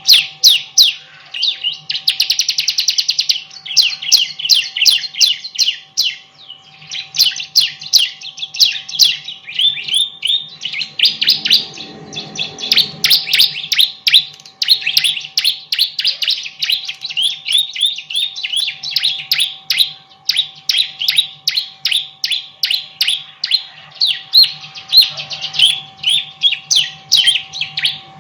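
Bar-winged prinia (ciblek) singing intensely in fast, unbroken series of sharp high chirps, with a very rapid trill about two seconds in.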